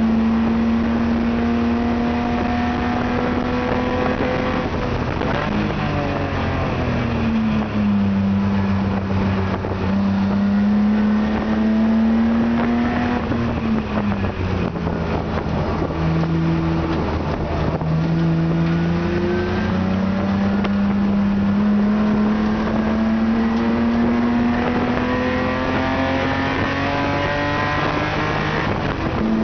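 BMW E30 Spec E30 race car's inline-six engine heard from inside the caged cabin while lapping a track. It runs hard, its pitch falling for braking and gear changes in the middle, then climbs steadily under acceleration through the second half.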